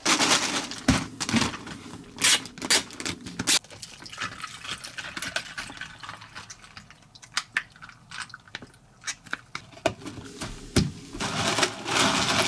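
Handling of a plastic cup and packaging, with sharp clicks and rustling dense in the first few seconds. Then iced vanilla Americano is poured over ice in a clear plastic cup and stirred with a straw, with scattered light clinks.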